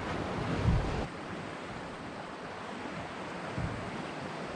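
Steady wind and open-water noise on the microphone, with a low gust buffet about a second in.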